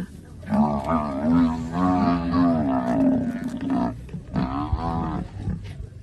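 A large animal's loud, long call with a wavering pitch, followed about four seconds in by a shorter one.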